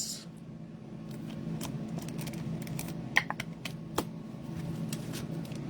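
Scattered light clicks and taps, with two sharper ticks about three and four seconds in, over a steady low hum.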